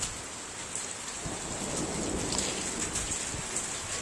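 Steady rain falling, with scattered drops ticking. A low rumble of thunder swells about a second in and fades away again.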